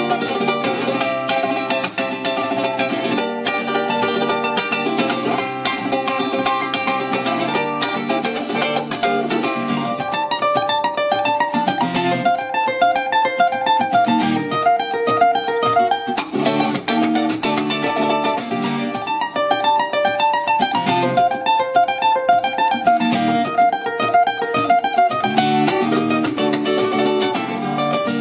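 Acoustic guitar and ukulele playing an instrumental passage without singing, the chords strummed. From about ten seconds in, a fast picked lead melody runs over the chords until near the end, when full strumming returns.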